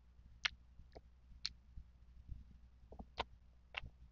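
Close-miked mouth sounds of someone chewing mango: a few short, wet clicks at uneven spacing over a low steady hum.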